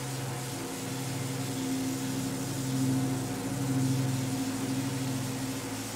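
Steady electric hum of industrial hatchery machinery, a low droning tone over a background hiss that swells a little and eases off twice.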